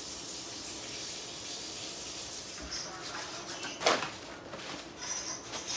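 Faint steady kitchen room hiss with one short knock about four seconds in and a smaller click a little before it.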